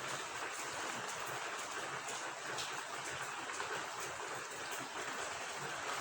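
Steady rain falling alongside running water: an even hiss with faint scattered drop ticks.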